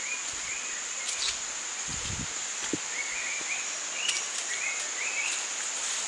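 Forest ambience: a steady high-pitched insect drone, with a bird calling in runs of short repeated chirps and a few soft knocks.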